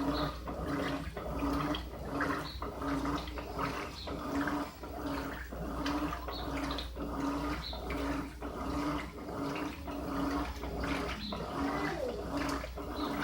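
Electrolux LTD15 top-loading washing machine in its wash cycle at the high water level: the motor hums in short strokes about twice a second as the agitator swings back and forth, churning and sloshing the water and clothes.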